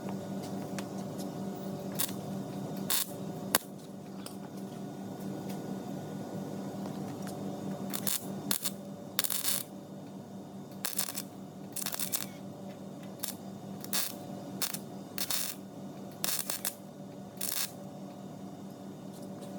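A welder laying short tack welds: a dozen or more brief crackling bursts at irregular intervals, over a steady electrical hum. The welds are filling the recessed door-handle pocket of a 1968 Firebird door to make it a flat surface.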